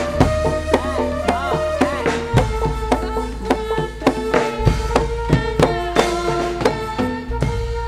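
Javanese jaranan accompaniment music: hand drums and pitched gamelan percussion playing a fast, even rhythm over a deep bass. Near the end the beating stops and the tones ring on.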